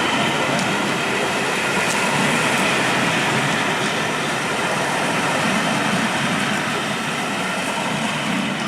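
Railway coaches of a steam-hauled train rolling past on the track: a loud, steady rush of wheels on rails with faint high ringing tones, easing slightly near the end.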